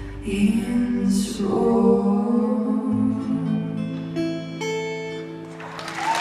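Live folk band music ending a song on guitar and held chords; audience applause starts near the end.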